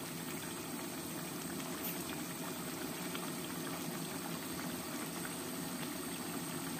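Red chili-tomato sambal sauce simmering in a steel wok, a steady bubbling.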